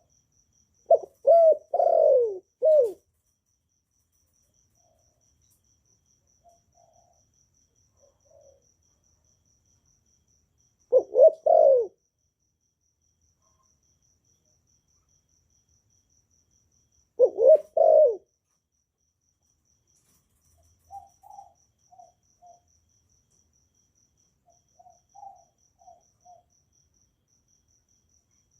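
Spotted dove cooing: three loud phrases of three or four coos each, several seconds apart, followed by a string of softer short coos.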